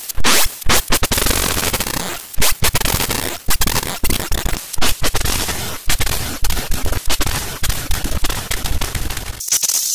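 Cartoon audio sped up and stacked on itself in many layers with app voice effects, turned into a loud, harsh wall of crackling, distorted noise broken by frequent abrupt cutouts. Near the end it switches to a high hiss over sparser crackle.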